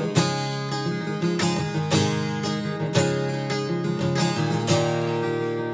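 Acoustic guitar playing: chords strummed in a steady rhythm, each ringing on into the next, with no voice over them.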